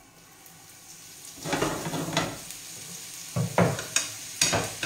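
Diced speck hitting hot oil in a frying pan and sizzling, the sizzle starting about a second and a half in. From about three seconds in come several sharp clatters as the pan is handled.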